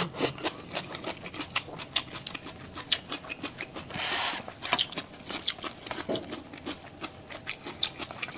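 Close-miked eating: wet chewing and mouth clicks coming irregularly several times a second, with a short hissing intake about four seconds in.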